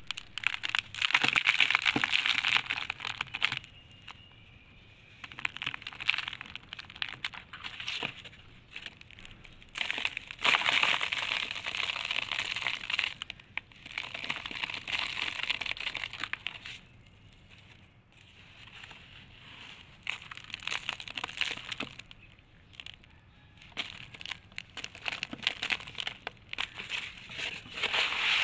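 Hands crushing and crumbling dry moulded blocks of red dirt: gritty crunching and crackling in bursts of a few seconds, with short pauses between.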